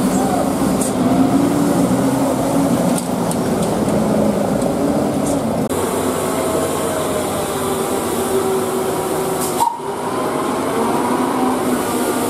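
Heavy diesel truck engines labouring up a steep hairpin climb, a loud steady drone whose pitch shifts and breaks off abruptly a few times.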